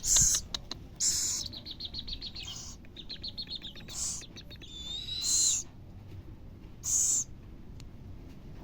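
Baby scops owl begging for food: about five short, hissing screeches a second or two apart, with a quick run of soft chirping notes between them and a brief wavering whistle.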